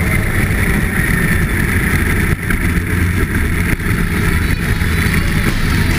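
Snowmobile engine running at racing speed with a steady, rough rumble, with crackling from the skis on the ice.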